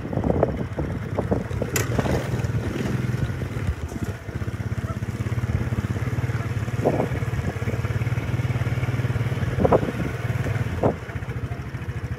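A small vehicle engine running steadily at low speed with an even, rapid pulse, with a few short knocks and rustles over it.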